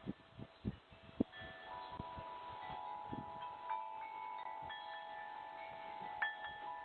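Wind chimes ringing, several tones starting one after another and overlapping, heard through a doorbell camera's narrow-band microphone. A few faint knocks sound in the first second or so.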